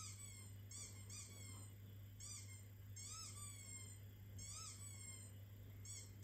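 Squeaky toy ball squeaking, about seven short, high squeals that rise and fall in pitch at uneven intervals, played through a laptop speaker.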